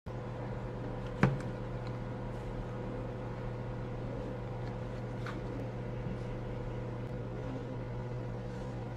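Steady hum with faint room noise. One sharp click about a second in, as the compact camera is lifted off the desk, and a fainter tick near the middle.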